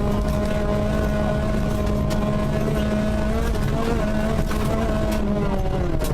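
Rally car engine running hard at nearly steady revs, its note dipping slightly near the end.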